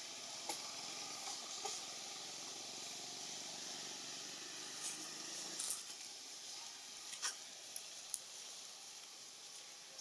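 Steady outdoor hiss with a low rumble underneath that drops away a little past halfway, and a handful of short, sharp clicks or snaps.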